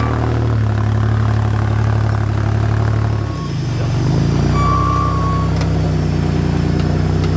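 Rock buggy's engine running steadily under load as it crawls up over rocks, easing off briefly about three seconds in and then pulling again.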